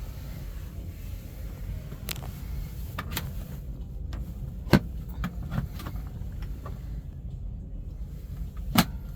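A steady low vehicle rumble with a series of sharp clicks and knocks, the loudest nearly five seconds in and another near the end.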